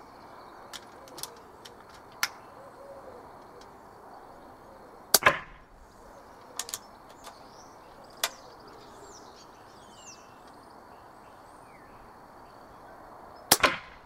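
Two shots from .177 Zbroia Hortitsia pre-charged pneumatic air rifles, a sharp crack about five seconds in and another near the end. Fainter clicks and knocks come between them, and a bird sings briefly around the middle.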